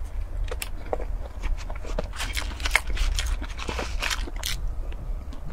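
Chewing and mouth sounds from eating a crumbly dessert, a run of small wet clicks and crackles, with a utensil scraping and tapping in a paper dessert box.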